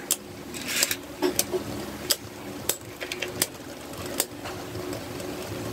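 Two Beyblade Burst tops, Bushin Ashura among them, spinning in a plastic stadium: a steady whirring hum with scattered sharp clicks and ticks.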